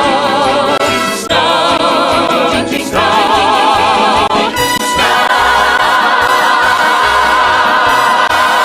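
Background orchestral music with voices, settling about five seconds in onto a long held closing chord.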